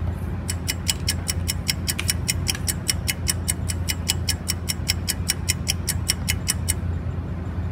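Countdown ticking sound effect: evenly spaced clock-like ticks, about four a second, timing the pause for viewers to answer, stopping about a second before the end. A steady low hum runs underneath.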